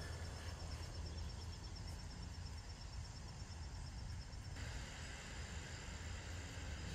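Outdoor ambience: a steady low rumble, with a rapid, evenly pulsed high-pitched chirping that stops abruptly about two-thirds of the way through.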